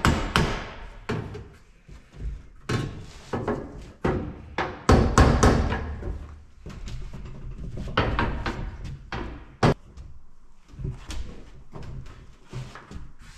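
Irregular knocks, bangs and scraping from a fiberglass truck-cab panel being worked by hand, struck and pried as damaged layers are broken away.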